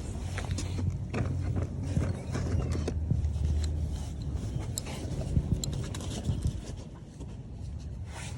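Clicks and metallic knocks of a 13 mm socket wrench being fitted and worked on a brake caliper bolt, over a steady low rumble.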